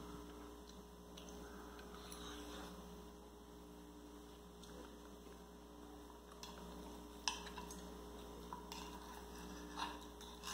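Fork and knife clicking lightly against a plate a few times in the second half, over a steady low electrical hum.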